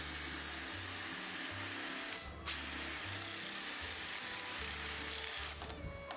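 Cordless drill running at speed, spinning a wooden dowel through a dowel-making jig as its blade shaves the dowel down, with a steady high whine. It stops briefly about two seconds in, runs again, and stops shortly before the end.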